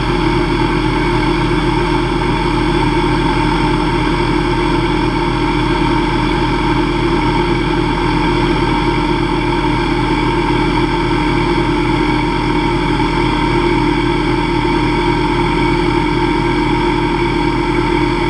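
Hobby CNC lathe running at 2500 RPM while a carbide CCGT insert takes a light finishing cut on an aluminium bar at 0.002 inch per revolution. A steady machine drone with several held tones and a fast, even pulse that does not change.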